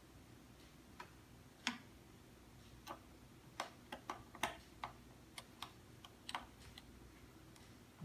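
A precision screwdriver making faint, irregular small metal clicks and ticks as it fits and turns the tiny retaining screw that holds an M.2 SSD to its motherboard standoff. There are about a dozen clicks, unevenly spaced.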